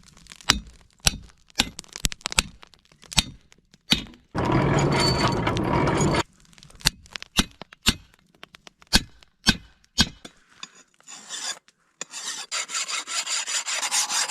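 Hammer blows on heated leaf spring steel being forged into a knife: sharp separate strikes, broken by a loud steady rushing noise of about two seconds. Near the end a hand file rasps over the steel in quick back-and-forth strokes, about three a second.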